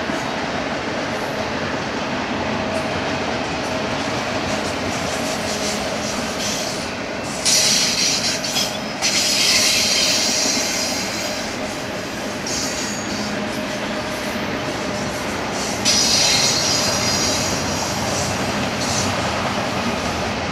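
BNSF double-stack intermodal freight train rolling past, a steady rumble and rattle of the container well cars. Two spells of high-pitched wheel squeal, one about seven seconds in and one about sixteen seconds in, as the wheels grind through the curve.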